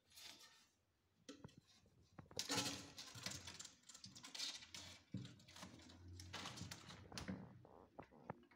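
Kittens scrambling and pawing about at play: a quick, irregular run of light scratches, taps and rustles that starts a little after the first second and is busiest from about two seconds in.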